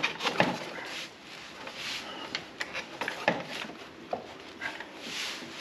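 Irregular knocks, clunks and scraping as a 2002 Polaris XC 500's rear suspension skid is worked by hand into its rubber track, the skid rails and idler wheels bumping and rubbing against the track lugs.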